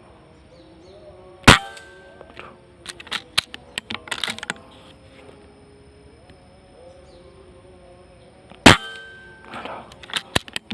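Two shots from a hunting gun, about seven seconds apart, each followed by a short run of small clicks and rustling knocks.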